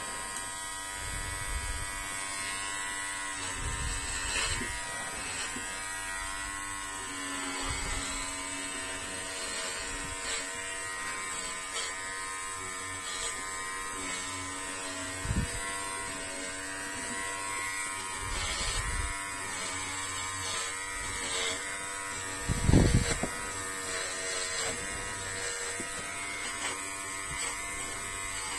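Electric hair clipper running with a steady hum as it cuts a doll's hair. Several dull knocks sound over it, the loudest about 23 seconds in.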